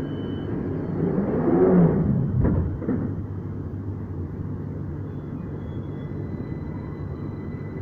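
Victoria line 2009 Stock tube train starting to pull away from the platform: a steady low hum with a clunk about two and a half seconds in, then a thin steady whine joins from about five seconds in.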